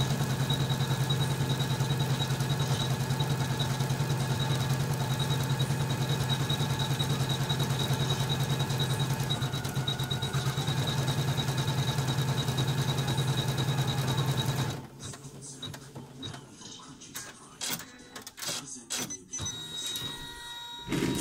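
Usha Janome MC450E embroidery machine stitching, a steady fast chatter of the needle that stops abruptly about two-thirds of the way through. A few light clicks follow.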